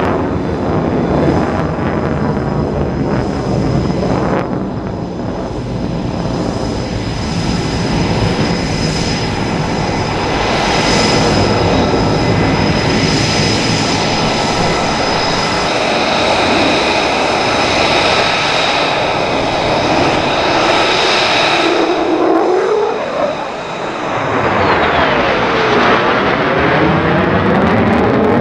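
Single-engine F-35A Lightning II fighter with a Pratt & Whitney F135 turbofan, a loud continuous jet rumble with a steady high whine as it manoeuvres overhead. About three-quarters of the way through the sound dips briefly, then sweeping rising and falling tones run through the noise as the jet passes.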